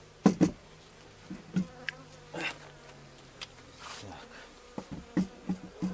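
Honeybees buzzing, a low steady hum that fades away about four seconds in, with several short sharp knocks and clicks, the loudest just after the start.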